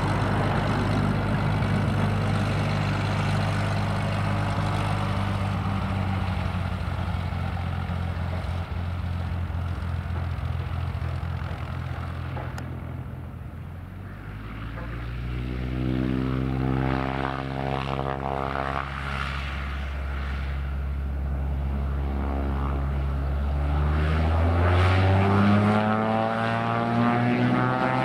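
Cessna 182H Skylane's Continental O-470 six-cylinder engine and propeller running at taxi power. The sound fades somewhat about halfway through as the plane heads away, then its pitch glides as the plane turns. Near the end the engine pitch steps up and it grows louder.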